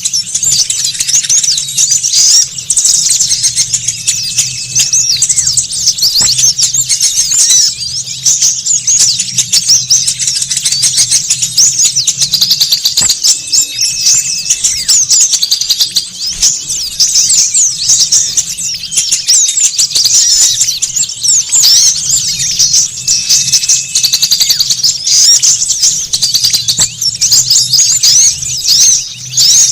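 A dense, agitated chatter of many small songbirds, rapid high chirps and twitters overlapping without a break: a noisy small-bird lure call. A short level whistle cuts in about every nine seconds.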